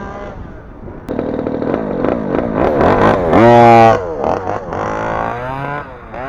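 Small 26cc two-stroke petrol engine of a 1/5-scale RC touring car, revving up and easing off again and again. The loudest rev, rising sharply in pitch, comes about three and a half seconds in.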